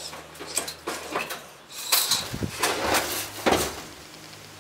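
A series of sharp knocks and clatters, loudest in the second half, as an airsoft player in gear falls onto a rubble-covered floor.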